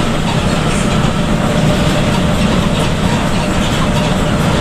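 Steady cabin noise of a coach bus cruising on a wet highway: a low engine drone under the hiss of tyres on the rain-soaked road.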